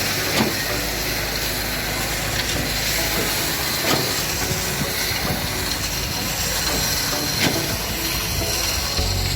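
Concrete pump working: a steady, hissing machine noise with a knock about every three and a half seconds, typical of the pump's pistons changing stroke.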